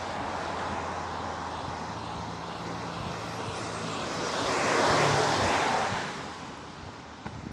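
A car going past on the road alongside, its tyre and engine noise swelling to a peak about five seconds in and then fading, over a steady hum of traffic.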